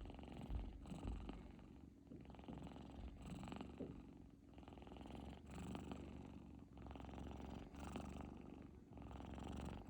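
Sleeping kittens snoring, a soft fluttering rattle on each breath, about one breath a second.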